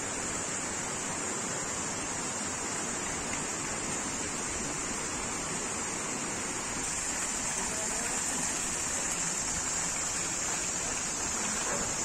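Running water rushing steadily, growing slightly louder about seven seconds in.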